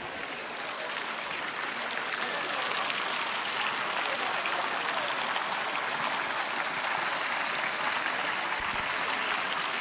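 Water jets splashing into a pond, a steady hiss of falling water that grows louder a few seconds in, with voices of people around.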